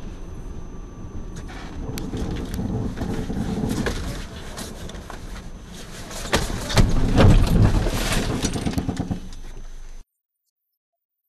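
A car driving on a snowy road, heard through its dashcam inside the cabin: steady road and tyre noise with clatters and knocks. These are loudest from about six to nine seconds in, and the sound cuts off suddenly about ten seconds in.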